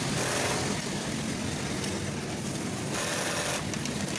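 Industrial double-needle split-bar sewing machine stitching, a steady mechanical hum over the noise of the factory floor.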